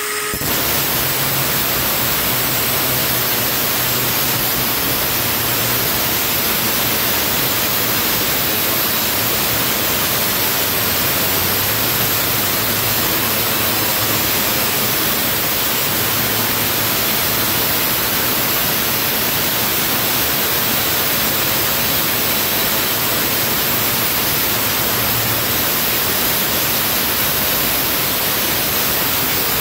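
Milwaukee M18 FUEL 2980-20 brushless cordless 6-inch angle grinder running without pause while its disc cuts into a rusty steel door frame and hinge. It makes a steady, even hiss at an unchanging level. The blade is worn and cutting the steel slowly, the kind of work that overheats the grinder's batteries.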